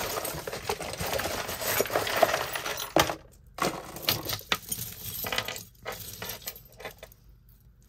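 Loose costume jewelry (metal bangles, chains and beads) clinking and rattling as a hand rummages through a pile of it. The jangle is dense for about the first three seconds, then thins to scattered single clinks.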